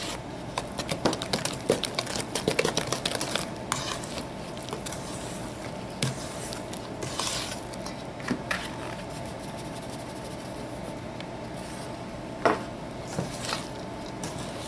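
Wooden spoon stirring flour into wet banana batter in a stainless steel mixing bowl, knocking and scraping against the bowl: quick and frequent for the first few seconds, then slower and sparser, with one louder knock near the end.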